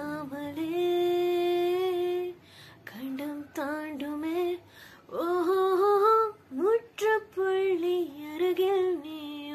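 A woman singing solo and unaccompanied, in short melodic phrases broken by breaths, with one long held note about a second in.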